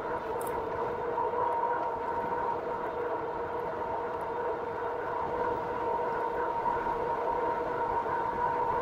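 2019 RadMini Step Thru fat-tyre electric bike cruising at about 20 mph under pedal assist, giving a steady, even whine from its drive and tyres. Wind rumbles on the handlebar-mounted microphone underneath.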